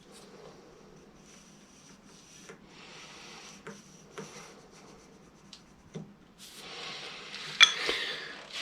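A marking tool scraping on a red oak board in faint short strokes. Near the end comes louder scraping and one sharp knock as the board is handled.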